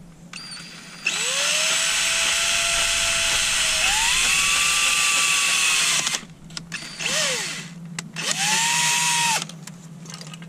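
Cordless drill/driver running in three goes as it works a fastener into a plastic bracket. First comes a run of about five seconds whose motor whine rises as it spins up and steps higher halfway through, then a brief blip, then a run of about a second.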